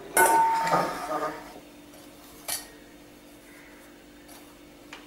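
Kitchenware being handled on a counter: a metallic clink with a short ringing tone right at the start, then two light taps, one about two and a half seconds in and one near the end.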